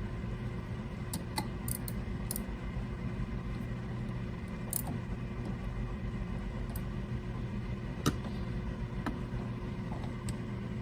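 Scattered light metallic clicks and scrapes of a lathe quick-change tool holder being worked on the tool post's dovetail, which still runs stiffly despite fresh lube. A steady low hum sits under them.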